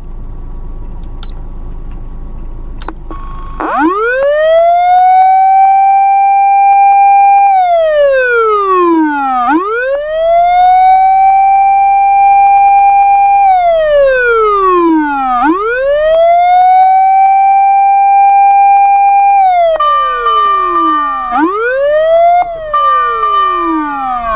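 Osaka Siren MK-8 electronic siren amplifier sounding a wail that starts about three and a half seconds in. Each cycle rises quickly, holds high for a few seconds, then slides slowly down, three times over. Near the end a steady high tone sounds on top of a further fall and rise of the wail.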